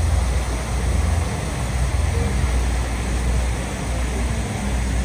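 City street noise: a steady low rumble of traffic under an even hiss, with no clear voices or music standing out.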